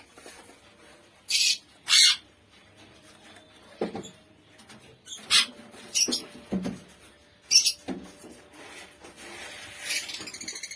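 Lutino opaline lovebirds giving short, shrill, high-pitched calls, about five loud ones scattered among quieter chirps.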